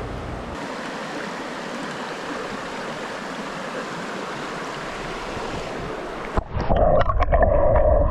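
Rushing mountain river water. About six seconds in, the camera is plunged underwater and the sound turns suddenly muffled and louder, with low rumbling and clicking bubbles.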